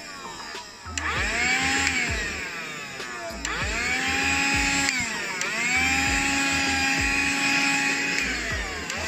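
Black + Decker Dustbuster 3.6V cordless hand vacuum switched on and off several times: its motor whine rises quickly as it spins up, holds steady, then falls away as it winds down. It starts up about a second in, again near the middle, and once more near the end.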